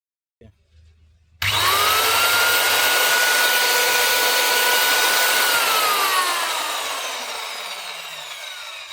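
Stanley 125 mm tile cutter's electric motor switched on, spinning up quickly to a steady high whine, then switched off about four seconds later and winding down, its pitch falling as it coasts to a stop.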